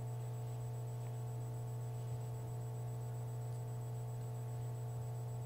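Steady low electrical hum with light hiss and a faint high-pitched whine, unchanging throughout.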